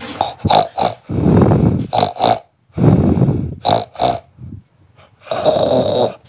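A person snoring loudly: three long snores, about a second in, about three seconds in and near the end, with short choppy breaths between them.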